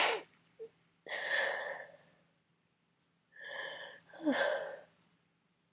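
A man with a heavy cold sneezing in a run, with sharp gasping breaths between the sneezes: a burst about a second in, then a gasp and a sneeze in quick succession past the middle.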